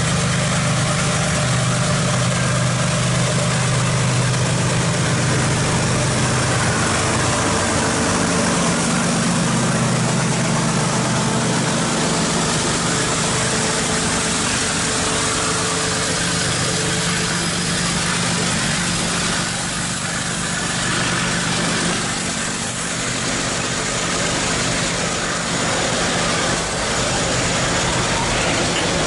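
Diesel-electric freight locomotive hauling empty hopper wagons up the grade. The locomotive's engine drones strongly for the first several seconds as it passes. After that comes the steady rumble and rattle of the empty wagons rolling by on the rails.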